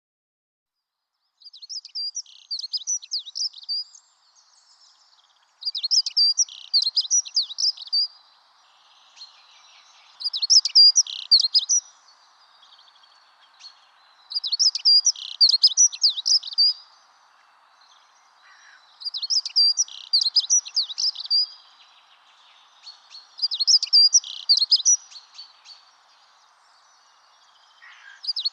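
A songbird singing the same quick, twittering song phrase over and over, starting about a second in: six phrases, each about two seconds long, roughly every four and a half seconds, over a faint background hiss.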